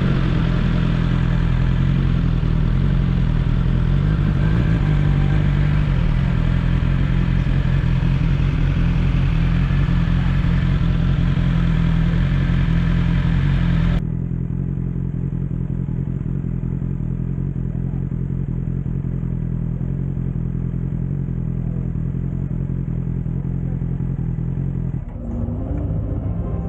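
BMW S 1000 XR's inline-four engine running steadily at low speed. About fourteen seconds in the sound cuts abruptly to a duller, more muffled engine note that keeps running evenly.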